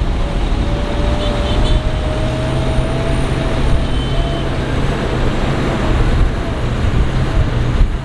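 Diesel engine of heavy earthmoving equipment running steadily with a low rumble. A faint thin whine rises slowly in pitch through the first few seconds.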